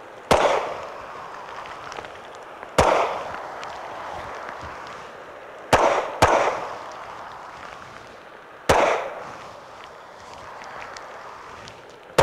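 Walther PDP 9mm pistol shots, six in all: single shots a few seconds apart, a quick pair about half a second apart near the middle, and the last at the very end. Each shot rings out briefly. The gaps between shots are the shooter moving from one firing position to the next in a movement drill.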